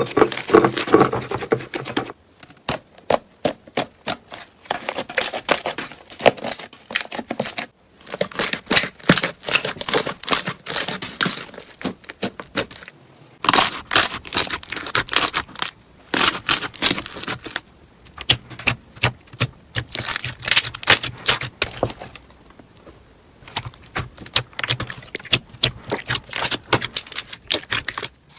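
Slime being squeezed and poked by hand, with rapid crackling, clicking air-bubble pops. It comes in several stretches that break off abruptly.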